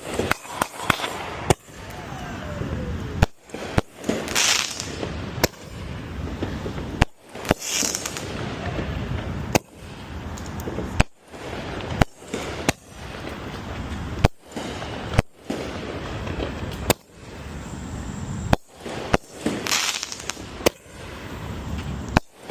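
Consumer fireworks going off: a run of sharp bangs with bursts of crackling, the sound dropping out abruptly again and again.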